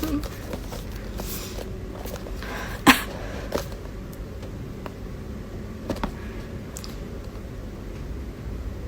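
Gift packaging being handled: brief rustling and a few sharp clicks and taps, the loudest about three seconds in, over a steady low hum.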